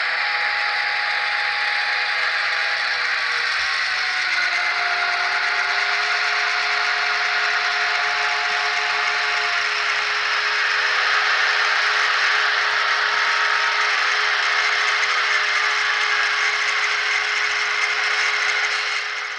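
Sound-equipped N scale Broadway Limited Imports diesel locomotives running: the onboard sound decoders' diesel engine sound played through tiny speakers, a hissy rattling drone with a steady hum that slides up in pitch about four seconds in, mixed with mechanical clatter of the running train. It grows a little louder around the middle as the locomotives come past.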